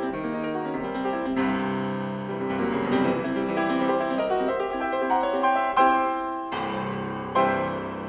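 Piano music: a flowing passage of many notes, then two loud chords struck in the second half that ring on and fade.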